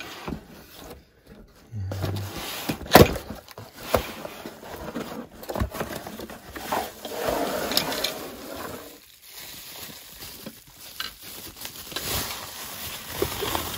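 Cardboard box flaps and plastic bubble wrap rustling and crinkling as a bubble-wrapped tripod stand is handled and pulled out of the box, with scattered clicks and a sharp knock about three seconds in.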